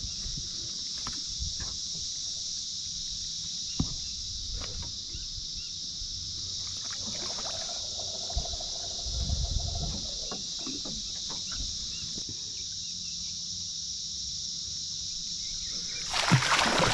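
A steady, high-pitched insect chorus with a few faint knocks. About sixteen seconds in, a threadfin salmon thrashes and splashes at the surface beside the landing net as it is brought in.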